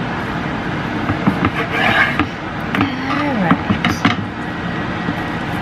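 Chef's knife slicing through raw chicken breast on a wooden cutting board: scraping, rubbing strokes with a few sharp taps of the blade against the board.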